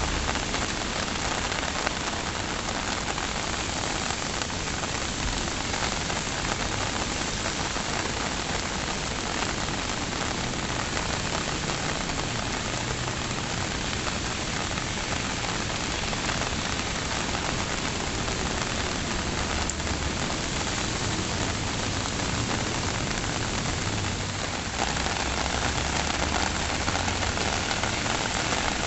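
Steady rain falling, a dense even hiss of drops on surfaces, getting a little louder near the end.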